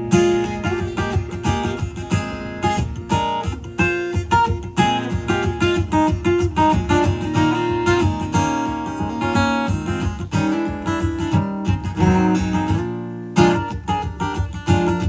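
Acoustic guitar playing an instrumental break in a blues-soul song: a busy run of quick picked notes.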